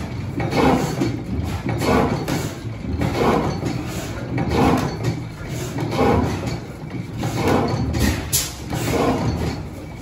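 Large antique horizontal stationary gas engine with twin flywheels running slowly, a heavy exhaust beat about every one and a half seconds over a steady low mechanical rumble.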